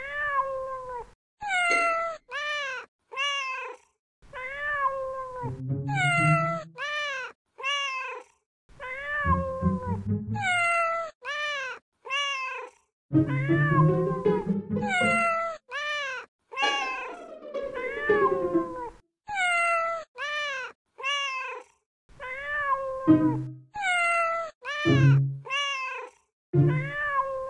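A cat's meows strung together into a song-like sequence over a music track, one after another at an even pace, with deeper sounds underneath at several points.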